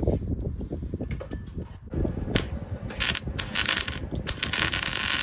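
Electric arc welder on steel plate: a few short crackling arc strikes from about two and a half seconds in, settling into a steady arc crackle near the end. Before that, clattering and knocks of handling and metal clinks.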